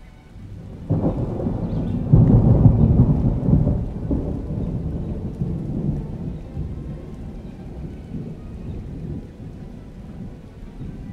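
A deep rumble that starts suddenly about a second in, swells for a few seconds, then slowly dies away.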